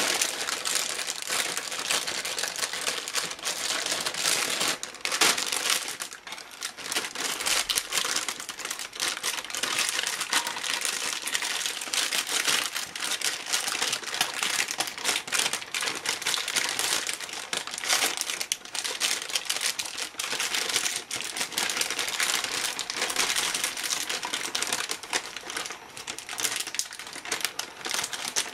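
Clear plastic bag of cereal crinkling and crackling as it is handled and its open neck gathered up to take a 3D-printed bag lid. The rustling is continuous, made of many small crackles.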